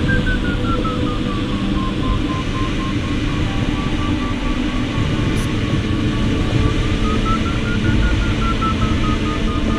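Glider variometer beeping rapidly, its pitch sliding down, holding, then rising and falling again about eight seconds in, over steady airflow noise in the cockpit of a Schempp-Hirth Ventus sailplane. The beeping tone signals the glider is climbing, with higher pitch for a stronger climb, as it circles in lift.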